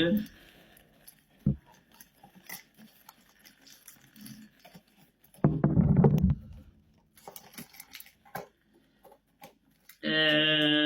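Small clicks, scratches and rustling of a gift package being handled and opened, with a brief loud low rush about halfway through. Near the end, a loud wordless vocal sound held at one steady pitch for just over a second.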